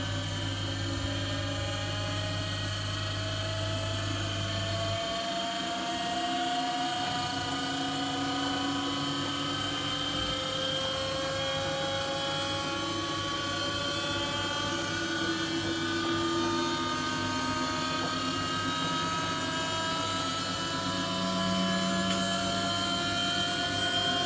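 Samsung S1043 washing machine spinning at high speed, its drum and motor whine rising slowly in pitch as the spin builds up. The spin runs normally on the machine's first run after a control panel replacement. A low hum stops about five seconds in.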